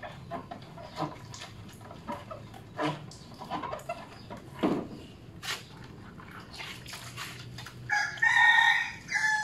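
Scattered light rubbing, splashing and clicking as a scooter is washed by hand. About eight seconds in a rooster crows, a loud call of about a second and a half that ends on a falling note.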